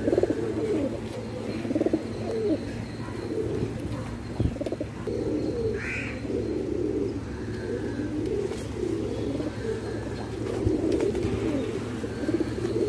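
Indian fantail pigeons cooing, with low coos overlapping one another without a break. A short higher chirp comes about halfway through, and there is a single knock a little before it.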